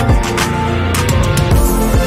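Background music with a heavy beat: deep bass-drum hits that drop in pitch, over sustained synth tones and sharp percussion.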